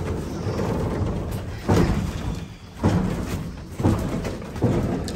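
Four heavy thuds, roughly a second apart, over a steady rumble, as a cable car cabin clanks through its station.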